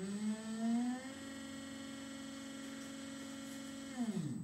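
A 12V 36 lb-thrust trolling motor, driven in reverse through an ESC with its propeller spinning in air, whines as it speeds up to a steady pitch about a second in. It winds down near the end as the throttle is brought back to zero. A faint steady high tone sits underneath.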